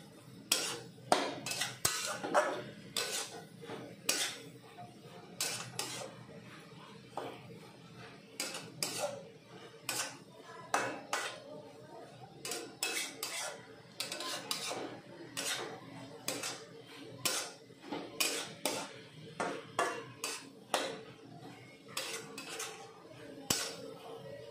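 Metal spatula scraping and knocking against an aluminium kadai as a cabbage and potato curry is stirred and mixed, in repeated irregular strokes about one or two a second.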